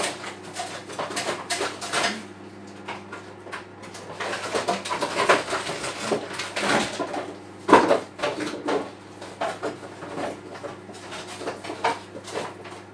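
Kitchen handling sounds: irregular clinks and knocks of dishes and utensils being moved about, the sharpest knock about eight seconds in, over a steady low hum.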